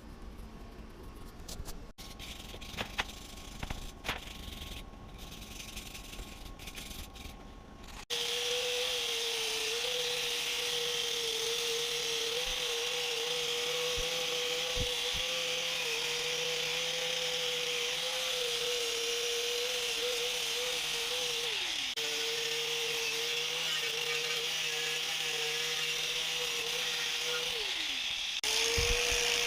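Dayton bench grinder running with a steady whine and a strong hiss, starting suddenly about eight seconds in after a run of clicks and knocks. The whine dips and breaks off briefly twice.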